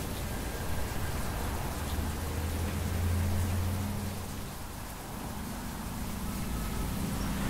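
Steady rain, with a low hum underneath that swells about two seconds in, fades out around four seconds, and gives way to a slightly higher hum from about five seconds.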